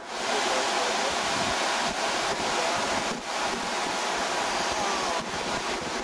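Sea surf churning and washing: a steady rushing of breaking water that starts abruptly and holds throughout.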